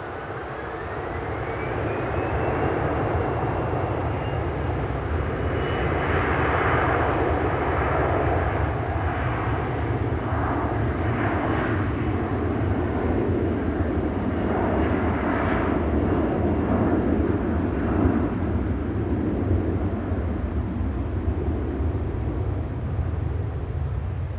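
Boeing 737-500's two CFM56-3 turbofan engines spooling up to take-off thrust. A whine rises over the first couple of seconds, then holds steady over a loud rush of jet noise as the airliner rolls down the runway and lifts off.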